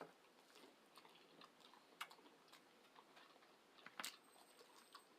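Faint close-up chewing while eating shrimp: soft, irregular wet mouth clicks over a quiet room, with the clearest clicks about two and four seconds in.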